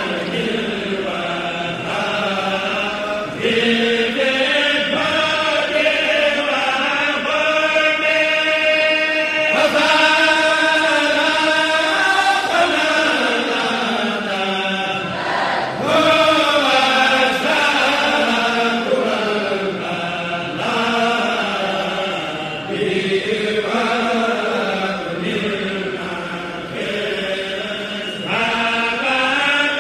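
Voices chanting an Arabic Sufi xassida (qasida) unaccompanied, in long, slowly bending melodic lines without a beat.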